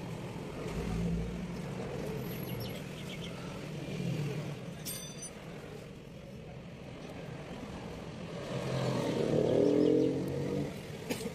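A vehicle engine running steadily in the background, swelling loudest about nine to ten seconds in, then dropping away.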